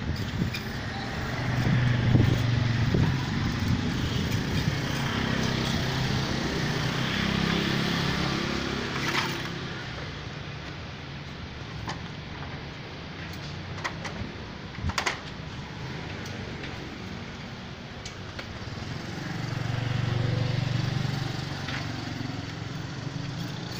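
A motor vehicle engine passing twice, its low hum swelling and fading, with a few sharp clicks or knocks in between.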